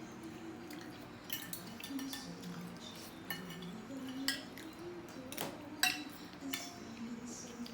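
Metal cutlery clinking against a plate and dishes in a handful of separate, irregular taps, with a faint low tone underneath.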